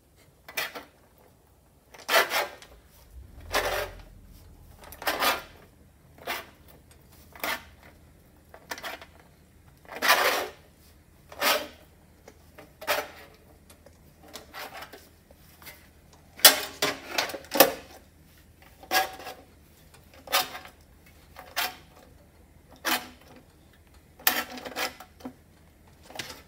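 Hand-lever sheet-metal shrinker clamped in a vise, its jaws clacking shut on the edge of a sheet-metal patch panel roughly once a second as the lever is pulled. Each stroke shrinks the edge, pulling the panel into a curve.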